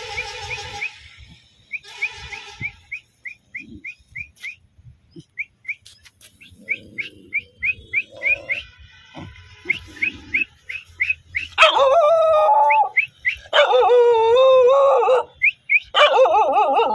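Dog howling: three long, wavering howls starting about twelve seconds in, the loudest sound. Throughout, a steady run of short, high, rising chirps, about three a second.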